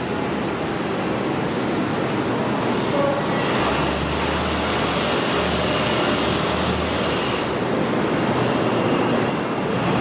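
R160A-1 subway train approaching on elevated track, its wheels rumbling over the rails and switches, blended with steady street traffic noise. A low hum from the train comes in about a third of the way through and fades again after about seven seconds.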